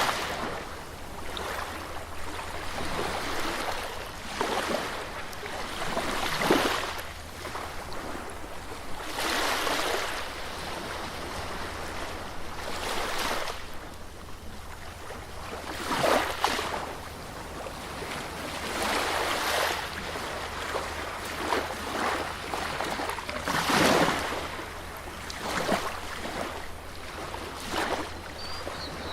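Sea waves washing onto a beach, the surf swelling and falling away every few seconds in irregular surges, over a steady low rumble.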